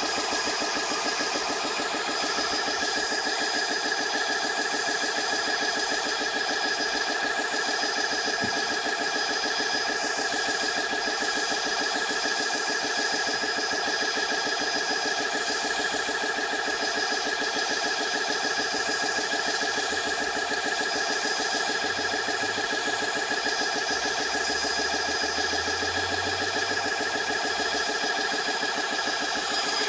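GX CS2 electric high-pressure air compressor running steadily under load, with a fast, even pulsing from its piston strokes over a steady whine, as it pumps air into a .177 PCP air rifle's cylinder.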